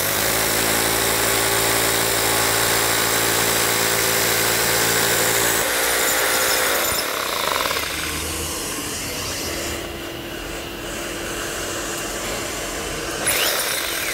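Hammer drill boring into concrete, its motor running steadily under the grinding of the bit, with a dust-extraction vacuum hose at the hole. About six seconds in the drill's steady hum gives way to a slightly quieter, even rushing that lasts to the end.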